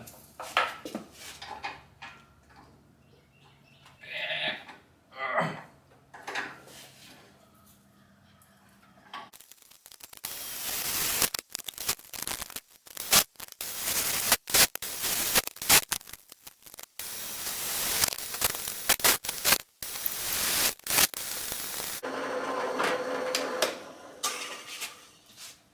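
Metalworking on a small piece of steel for a knife guard: a few light taps and clicks, then about twelve seconds of loud, harsh tool noise that stops and starts abruptly many times, followed by a steadier run of the tool near the end.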